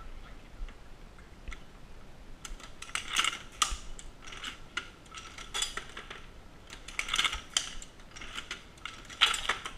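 Dillon SL 900 shotshell reloading press being cycled: metallic clanks and rattles from each stroke of the press, coming in groups roughly every two seconds.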